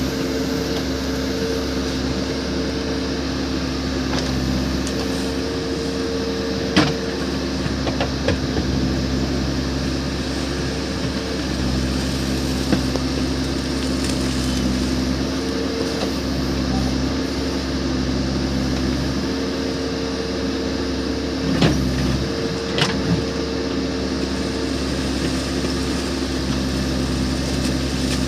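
Case backhoe loader's diesel engine running steadily under changing load as the machine works, its note shifting every few seconds, with a few sharp knocks, the loudest about 7 and 22 seconds in.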